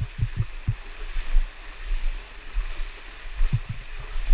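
Flowing cave stream rushing steadily, with a few short low thuds in the first second and again near the end.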